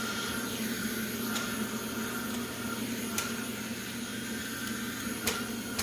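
Vacuum cleaner motor running with a steady hum, with a few faint clicks about a second, three seconds and five seconds in.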